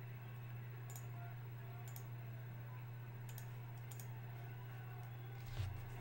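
Faint, sharp clicks at irregular moments roughly a second apart, over a steady low hum, with one soft thump near the end.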